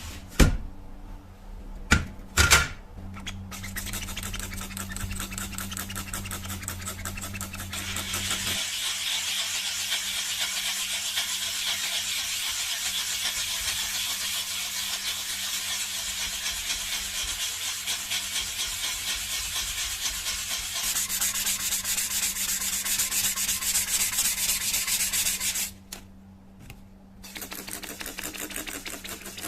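Fast, even abrasive rubbing, like hand sanding, on the old knife's metal. It starts after a few sharp clicks and runs steadily, breaks off about 26 seconds in, and resumes more faintly near the end.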